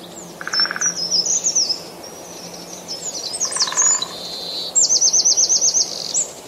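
Birdsong: several birds chirping and calling with short high slurred notes, two short buzzy calls, and a fast run of about ten repeated notes about five seconds in, over a faint steady hiss.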